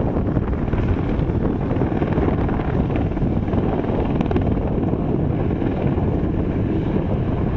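AH-64A Apache attack helicopter flying by, its four-blade main rotor and twin turboshaft engines running at a steady loudness.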